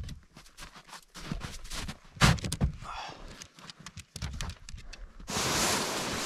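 Scattered knocks and clunks of a plastic storage tote being handled, with footsteps in snow; the loudest knock comes about two seconds in. Near the end, wind buffets the microphone as a steady rushing.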